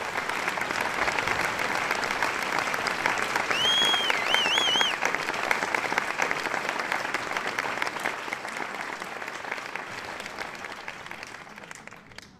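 Audience applauding, swelling up at the start and fading away near the end, with a few short whistles about four seconds in.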